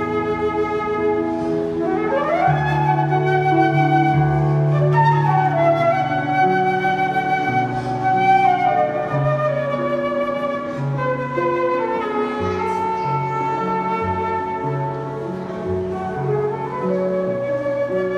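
A flute and an electronic keyboard playing together: the flute carries the melody over keyboard chords and a moving bass line.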